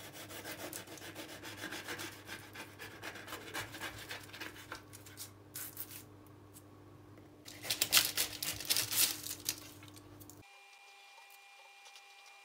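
Serrated knife sawing back and forth through a baked biscotti loaf, a quick run of rasping strokes, with a louder flurry of strokes about halfway through as the blade cuts through.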